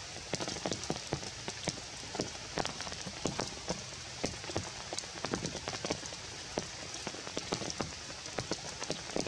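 Rain falling: a steady hiss with many close, irregular drop hits.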